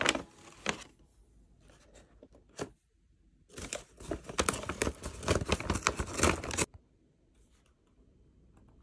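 Packaging crinkling and tearing in short spells, the longest run lasting about three seconds and stopping abruptly.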